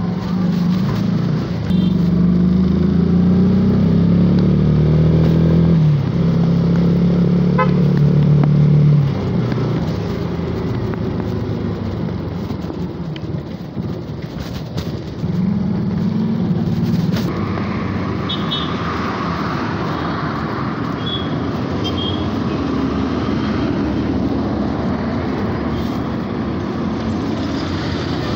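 Yamaha FZ 2013 motorcycle's 153 cc single-cylinder engine running under way: its pitch climbs, drops sharply at gear changes about 6 and 9 seconds in, climbs again, then holds a steadier cruise.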